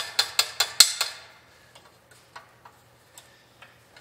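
Steel hand tools clinking against the Model A Ford's front axle and spring hardware: a quick run of sharp metal clicks in the first second, then a few faint ticks.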